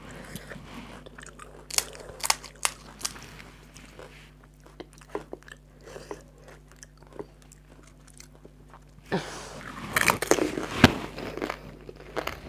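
Crisp fried fuchka (panipuri) shells crunching close to the microphone: a few sharp cracks about two to three seconds in, then a louder spell of crunching and chewing from about nine seconds in, loudest near eleven seconds.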